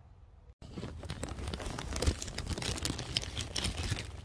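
Large plastic bag used as a sleeping bivy, crinkling and rustling as someone shifts around inside it: a dense run of crackles that starts about half a second in.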